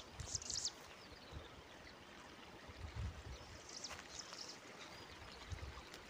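Faint mountain-valley ambience: a steady soft hiss with birds giving short, high chirps near the start and again around four seconds in, and a couple of soft low bumps.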